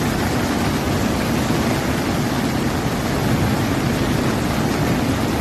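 Floodwater rushing and churning down a rocky channel: a loud, steady rush of water that cuts off abruptly at the end.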